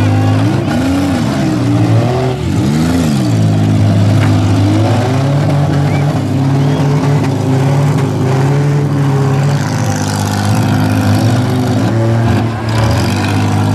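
Demolition-derby van engines revving hard, rising and falling several times in the first few seconds, then held at high, steady revs as the vans push against each other in the dirt.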